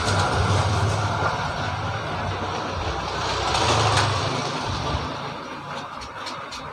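A motor vehicle engine running close by, loudest about four seconds in and then fading away as it passes.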